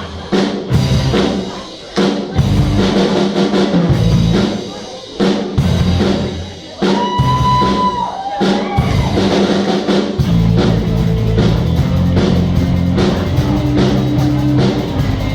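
Instrumental passage of a band's song: drum kit and bass, with a lead melody that holds a long note and bends down about seven to nine seconds in.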